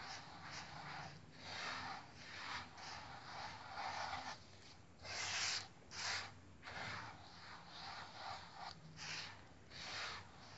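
Coarse semolina rubbed and tossed by a gloved hand: repeated swishing, grainy strokes, about two a second, some stronger than others. This is the oil being worked into the semolina before it is kneaded.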